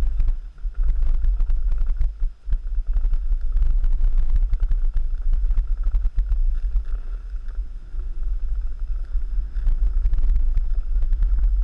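Wind buffeting the microphone in a steady low rumble, mixed with the rough scraping and chatter of a snowboard sliding and carving over packed snow while riding downhill.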